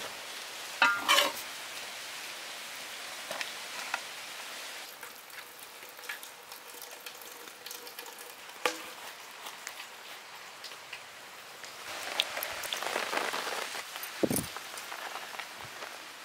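Metal ladle clanking and scraping against aluminium serving vessels as cooked biryani rice is scooped out and piled up, with a rustling hiss of the rice sliding and falling. One ringing clank comes about a second in, and a longer stretch of scooping and scraping comes near the end.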